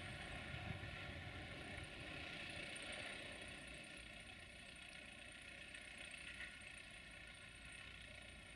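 A car rolls slowly over a railway level crossing, its wheels knocking twice on the rails near the start, then the engine's faint rumble fades as it drives away. A steady faint high-pitched hum and a thin high buzz carry on underneath.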